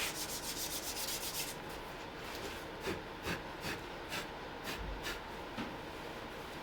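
Abrasive rubbing by hand, like sanding or scrubbing: a fast run of strokes, about eight a second, for the first second and a half, then single slower strokes roughly every half second until about two-thirds of the way through.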